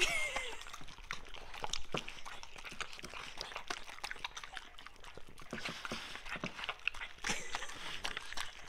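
Two dogs licking and chewing frosting and cake from a plate: a continuous run of quick, irregular wet licks, smacks and clicks.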